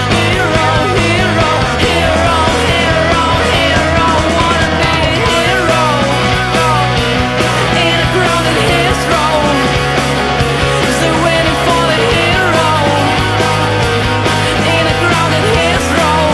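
Background rock music with distorted guitars, a steady bass line and a voice or lead melody.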